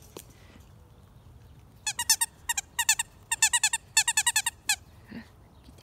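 Squeaker in a plush dog toy squeezed quickly over and over, giving several short runs of high squeaks at about ten a second, starting about two seconds in.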